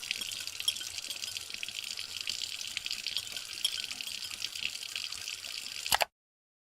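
A steady high hiss with faint crackles, cutting off abruptly about six seconds in.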